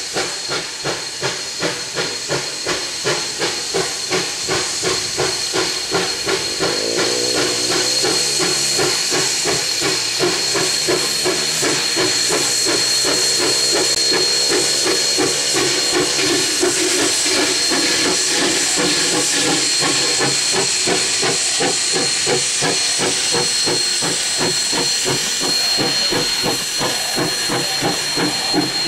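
Steam locomotive No. 152 working past under power: rhythmic exhaust chuffs, about two a second at first, over a steady steam hiss. The sound grows louder over the first ten seconds as the engine approaches and passes, then the coaches roll by behind it.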